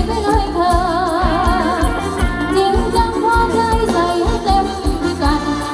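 Live band playing Thai ramwong dance music: a singer's wavering voice over a steady drum beat of about three beats a second.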